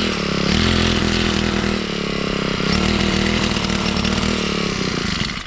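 Small petrol engine of a motorized crop sprayer running steadily at high speed, its pitch dipping slightly a couple of times, then cutting off abruptly.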